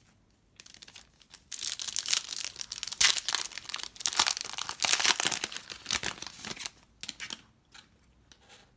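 Plastic trading-card pack wrapper being torn open and crinkled by hand, a dense crackling rustle for about five seconds that dies down into a few small handling clicks.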